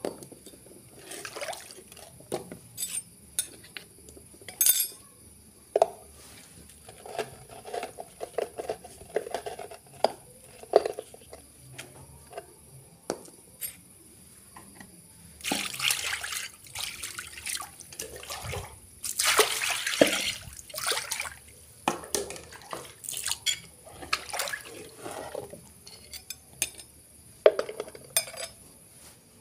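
A spoon clinking and scraping against a mortar holding watery ground spice paste, with liquid sloshing and splashing, loudest about halfway through and again a few seconds later.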